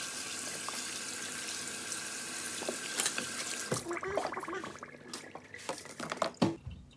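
Kitchen faucet running, its water splashing over carrots being rinsed in a sink. The water stops a little over halfway through, followed by a few light knocks.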